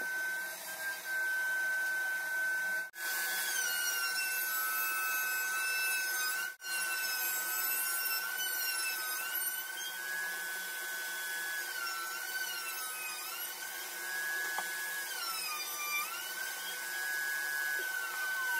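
Router motor running at high speed while routing green MDF. Its whine dips in pitch again and again as the bit takes load, then recovers. A shop vacuum runs steadily underneath, and near the end the router's pitch starts falling as it winds down.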